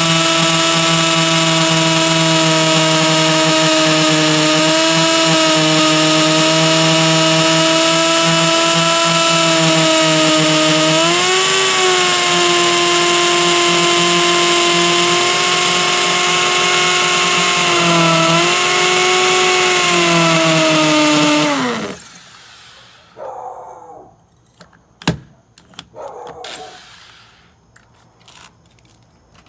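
DeWalt hammer drill running steadily while drilling a hole into the concrete wall, its whine dipping in pitch twice as the bit loads up. About 22 seconds in it is released and winds down to a stop, followed by a few faint knocks and a sharp click.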